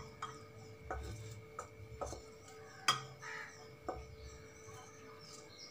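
Metal spatula scraping and knocking against a pan as the fried cauliflower Manchurian is pushed out into a bowl: about half a dozen light knocks, the loudest about three seconds in, over a faint steady hum.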